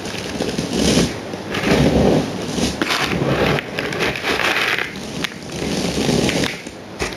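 Rustling, scraping and crackling of scenery materials and packaging being handled, in irregular bursts with a few sharp clicks.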